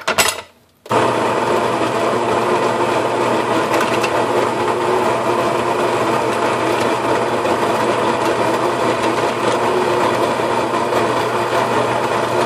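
Baratza Preciso conical burr coffee grinder starts about a second in and runs steadily, grinding coffee beans at a fine espresso setting into a portafilter held under its spout.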